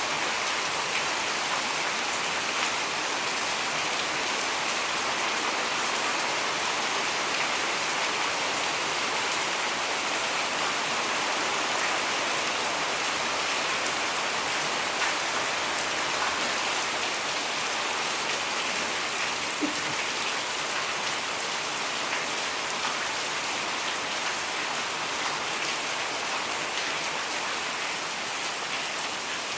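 Steady rain falling, with a constant hiss of many drops pattering on surfaces.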